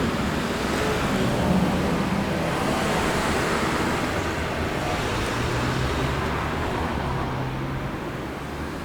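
Road traffic: cars driving past, a steady wash of tyre and engine noise that slowly fades.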